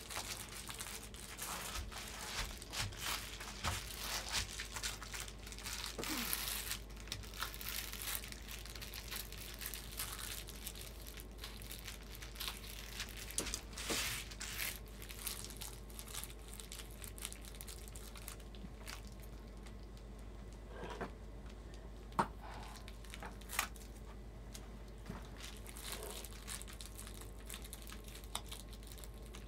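Reflectix foil bubble insulation crinkling and crackling as it is pressed and smoothed into an RV window frame by hand. The crackling is busy through the first half, then sparser, with a few sharp clicks in the second half.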